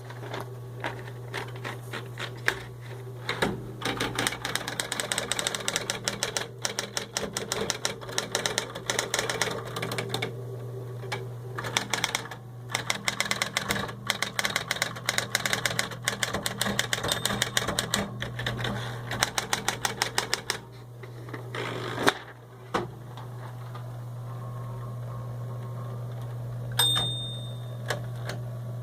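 Smith Corona Electra 120 portable electric typewriter typing: a fast run of key strikes over the steady hum of its running motor, with one louder strike about 22 seconds in. After that the motor hums on its own, with a short ringing tone near the end.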